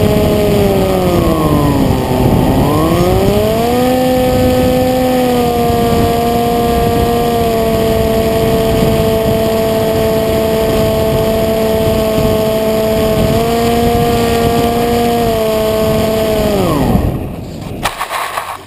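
Electric motor and propeller of a depron flying wing running steadily, heard from on board with wind rushing over the microphone. The pitch dips and climbs back about two seconds in, then falls away near the end as the throttle is cut, followed by a brief scraping rustle as the wing lands in grass.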